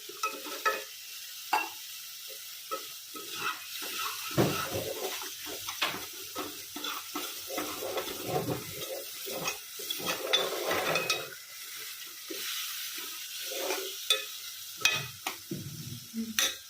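A spoon or ladle repeatedly stirs and scrapes food sizzling as it fries in a pan, with frequent clatters of the utensil against the metal.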